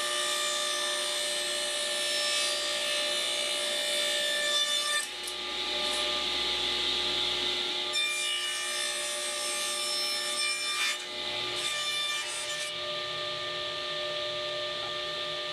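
Table saw running with a steady whine while its blade cuts through wood, in a few separate stretches that change abruptly.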